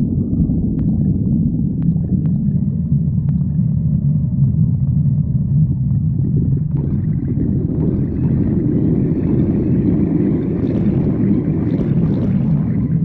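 A hungry stomach growling: a long, continuous low rumble that turns more gurgly, with higher bubbling sounds, from about seven seconds in.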